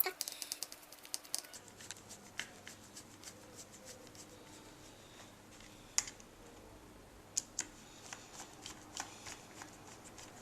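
Faint clicks and light ticks of engine mount screws being driven by hand into a radio-controlled nitro car's chassis. A quick run of ticks comes at the start, then scattered sharper clicks.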